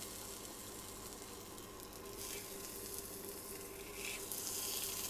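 Lamb breast sizzling in hot oil in a frying pan as it sears, its fat coming out into the pan. The sizzle gets brighter and a little louder about two seconds in.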